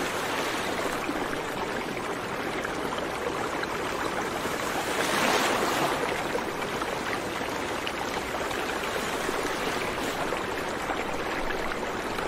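A steady rushing, hissing noise like running water, swelling briefly about five seconds in.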